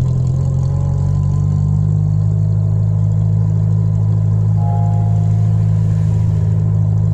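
Ford Escort Mk5 car running at a steady pace, with a loud, even low drone.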